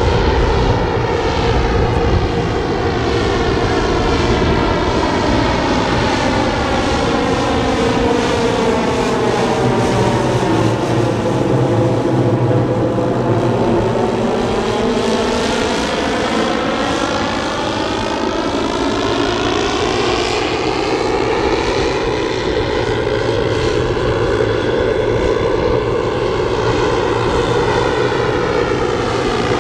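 The twelve 10 cc O.S. model engines of a 1:10 scale Dornier Do X RC flying boat running together in a steady multi-engine overflight, passing closest about twelve seconds in.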